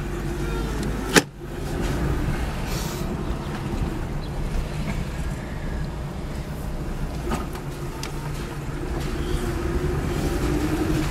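Lada VAZ-2104's four-cylinder engine running as the car drives slowly, heard from inside the cabin. There is a sharp click about a second in.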